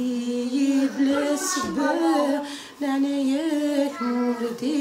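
A woman singing a slow melody unaccompanied, in long held notes with ornamented turns and short breaks for breath.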